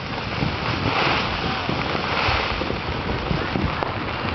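Wind rushing over the microphone, mixed with a dense crackle of distant fireworks and firecrackers popping over the city.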